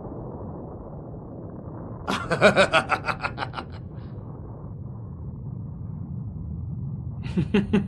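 A voice laughing in a quick run of ha-ha pulses about two seconds in, and again starting near the end, over a low steady rumble.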